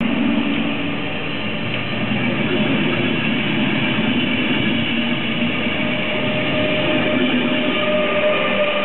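Passenger train hauled by an ÖBB class 1116 electric locomotive rolling along the platform track: a steady rumble of coach wheels on the rails, joined in the last few seconds by a steady whine.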